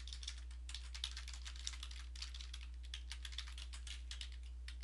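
Typing on a computer keyboard: a quick, uneven run of key clicks, over a steady low electrical hum.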